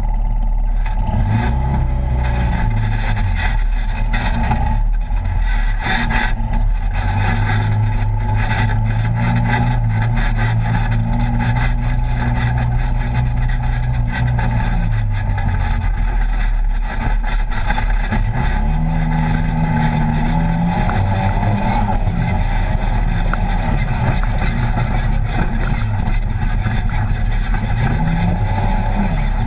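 Polaris RZR side-by-side's engine running under way on a rough dirt trail, its pitch holding steady through the middle, then dropping and climbing again with the throttle. Frequent knocks and rattles over the bumps run through it.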